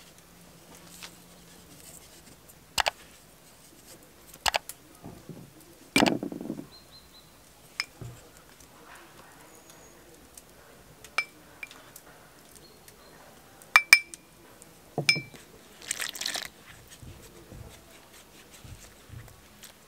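Scattered clinks and knocks of small ceramic bowls, a metal bowl and a wooden spoon against an enamel basin and a wooden table, some with a short ring, as salt and other ingredients are added to flour by hand. Near the end a brief rush of water is poured into the flour.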